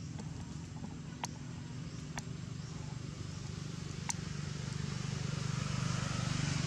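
Low steady hum of a motor vehicle's engine off in the distance, growing louder in the last couple of seconds, with three short sharp clicks in the first four seconds.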